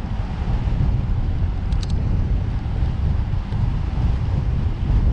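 Wind buffeting the microphone of a camera carried on a moving bicycle: a steady, loud low rumble, with a brief cluster of high clicks just under two seconds in.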